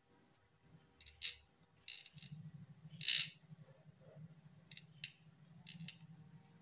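Short scraping strokes of a small metal blade peeling skin off a white radish, several rasps at uneven intervals, the loudest about three seconds in. A low steady hum runs underneath from about two seconds in.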